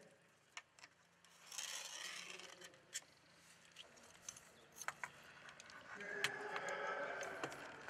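Faint rubbing and scraping with scattered light clicks: hands working copper pipework against the wall of a hot water cylinder installation.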